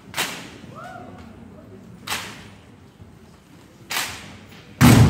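Rifle drill: sharp cracks of a drill team's hands and rifles striking in unison, four in all, about every two seconds. The last one, near the end, is the loudest and deepest, a heavy thump.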